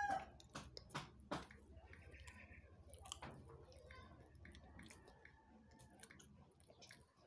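A person chewing SkyFlakes crackers with the mouth closed, faint, with scattered soft clicks and crunches. A rooster's crow is just ending at the very start.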